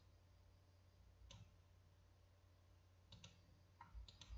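Faint computer mouse clicks over near silence with a low hum: single clicks at the start and about a second in, a quick double click about three seconds in, and a few more near the end.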